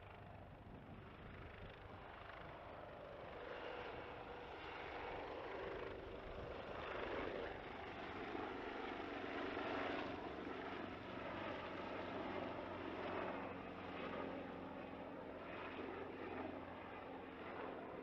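AgustaWestland AW189 coastguard search-and-rescue helicopter running at climb power as it lifts off and flies away. It makes a steady turbine and rotor sound that grows louder about halfway through, then eases a little.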